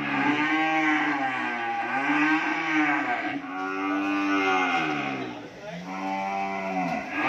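Cattle mooing: long, drawn-out calls that rise and fall in pitch, one after another with hardly a break, dipping briefly about five and a half seconds in.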